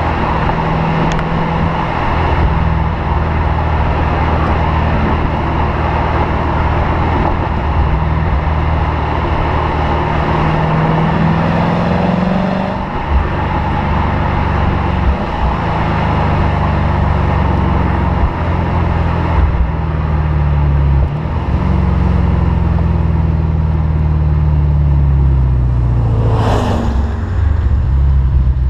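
Lexus RC F's 5.0-litre V8 exhaust under way, the engine note climbing as it accelerates and dropping back at each upshift, several times over. Near the end there is a brief rushing sweep and the engine note falls as the car slows.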